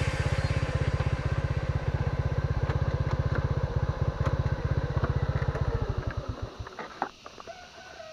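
Motorcycle engine running with a steady low throb, then switched off about six and a half seconds in, its beats slowing and dying away. A few light clicks follow.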